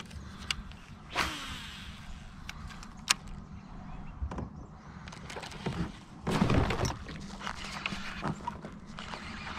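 Sharp knocks and clicks on a plastic fishing kayak as the angler handles gear, with a louder, longer rustling burst about six seconds in.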